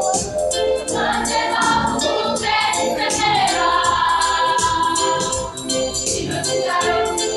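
A choir of secondary-school students singing together in a gospel-style song, with a steady beat.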